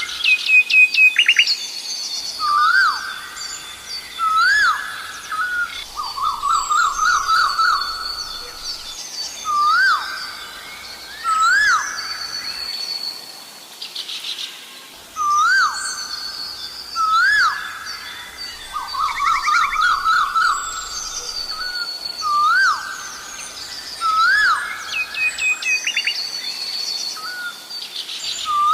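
Asian koel calling over and over, a rising two-note 'ko-el' about every two seconds, with two runs of quick repeated notes. Smaller birds chirp higher in the background.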